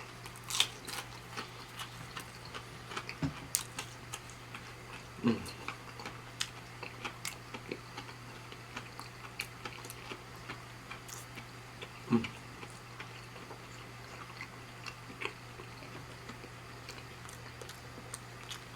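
Close-miked chewing and biting of breaded plant-based buffalo wings: many small irregular mouth clicks and smacks, with a few louder low thuds about five and twelve seconds in. A steady low hum runs underneath.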